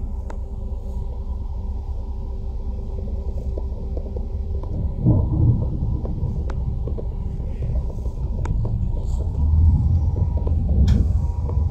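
A vehicle running: a steady low rumble under a constant hum, with a few sharp clicks and the rumble swelling about five seconds in and again near ten seconds.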